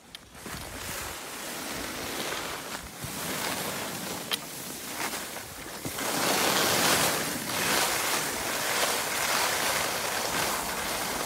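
Skis scraping and hissing over hard-packed piste snow, with wind rushing across the microphone, as the filmer skis downhill. The noise starts abruptly, swells and fades with the turns, and grows louder about six seconds in. There is one sharp click a little over four seconds in.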